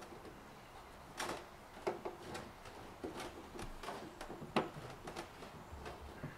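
Short, irregular plastic clicks and knocks of a 3/4-inch PVC pipe being worked into its elbow and tee fittings for a dry fit. The loudest knock comes about four and a half seconds in.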